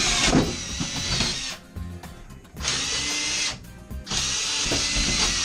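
Power drill boring into wood framing, running in three bursts of about a second each with short stops between; the bit is cutting through a hard knot in the wood.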